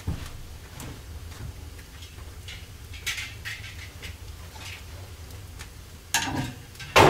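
Footsteps on wooden floorboards and a small wood fire faintly crackling in an open hearth, with two louder knocks near the end as cookware is handled.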